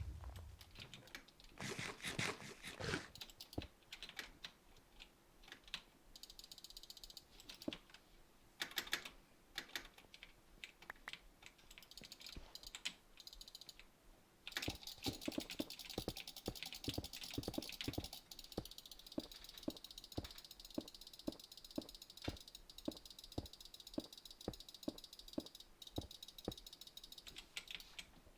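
A series of sharp clicks: irregular tapping at first, then from about halfway a steady high hiss with clicks at an even pace of about two a second.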